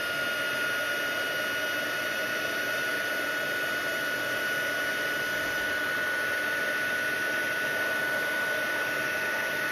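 Embossing heat gun running steadily, a rushing fan noise with a constant high whine, as it heats and melts copper embossing powder.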